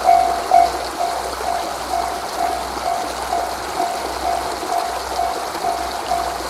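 Japanese railway level-crossing warning bell ringing its repeated "kan-kan", about two strokes a second, over a steady rushing noise. The strokes are a little louder in the first second.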